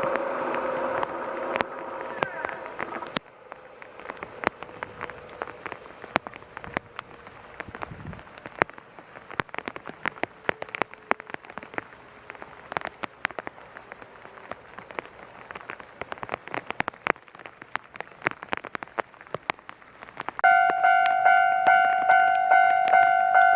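A Kintetsu electric train passing over the level crossing dies away in the first three seconds, leaving faint, scattered irregular ticking. About twenty seconds in, the level crossing's electronic warning bell starts up, ringing about twice a second, the signal that another train is approaching.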